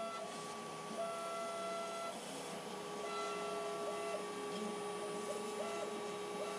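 CNC router machining building foam with a ball nose bit on the detail pass: a steady machine whine, with higher tones that switch on and off every second or so as the cut goes on.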